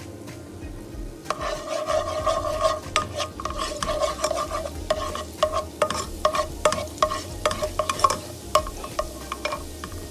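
Black plastic slotted spatula stirring and scraping minced garlic in hot oil in a nonstick pan, starting about a second in: repeated scraping strokes with a squeaky tone, many small clicks against the pan, and the garlic sizzling under them.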